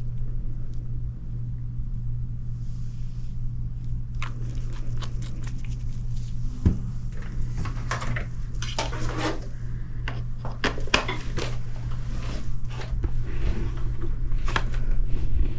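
Small hand tools clicking and scraping against a dish or container, in many short, irregular strokes from about four seconds in, over a steady low hum.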